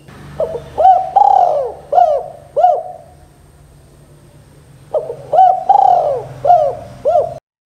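Spotted dove cooing: two phrases, each a quick run of rising-and-falling coos with one longer drawn-out coo in the middle. The second phrase comes about five seconds in, and the sound cuts off suddenly near the end.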